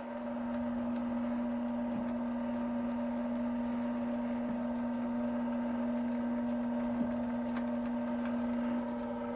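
Rose engine lathe's drive motor running with a steady hum, with a few faint ticks.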